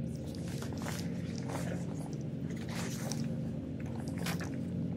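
Scattered scuffs and rustles of people moving over a bat-guano cave floor, over a steady low hum.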